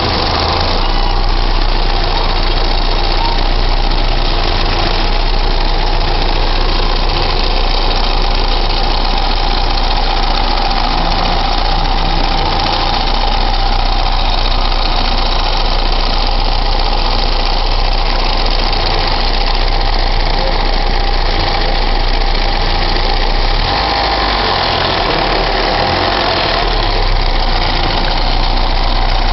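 An engine idling steadily, with an unusual noise in its running that the owner calls strange.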